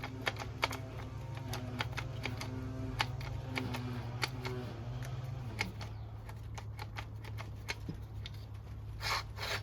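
Background music: a steady low drone with short notes changing pitch, over a run of sharp clicks. The notes stop about halfway through, and two brief hissing swells come near the end.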